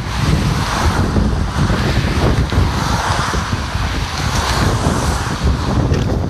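Wind buffeting the microphone in a steady loud rumble, over the rush of car traffic passing alongside.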